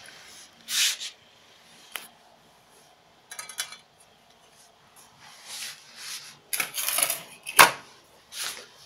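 Handling noises: a series of short scraping rubs and several sharp knocks, with the loudest cluster near the end.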